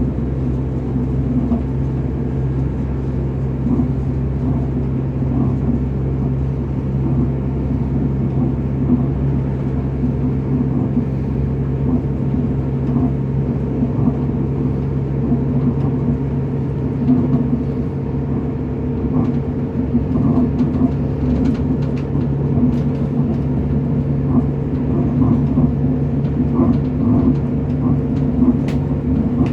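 Train running along the line: a steady, even drone with a low rumble, and a few faint ticks in the second half.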